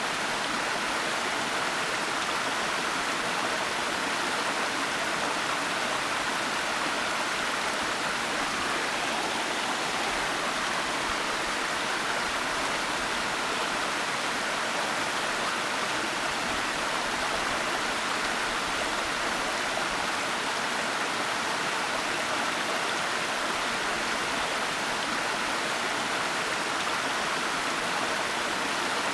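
Waterfall: water falling and rushing in a steady, unbroken hiss, with no change in level.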